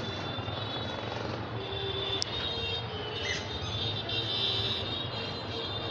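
Street traffic din with auto-rickshaw and other motor engines running. There is a sharp click about two seconds in, and high steady tones sound over the din through the middle seconds.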